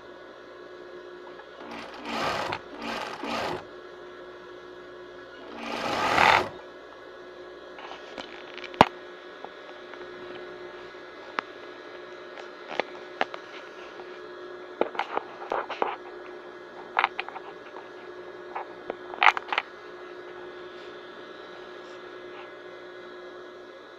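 Electric sewing machine stitching in short runs: three quick bursts a couple of seconds in and a longer run growing louder around six seconds in, then scattered clicks and taps over a steady hum.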